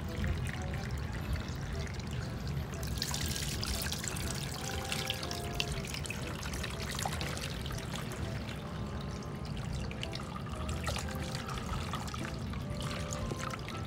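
Water splashing and trickling in a plastic tub as a small dog is washed by hand, the splashing livelier from about three seconds in.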